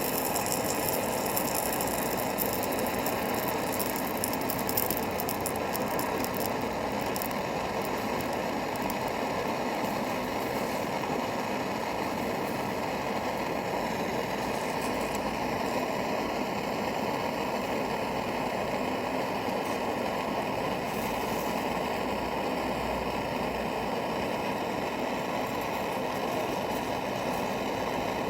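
Gas torch flame running steadily while heating a brass-and-steel radiator joint for soldering, with some crackling during the first several seconds.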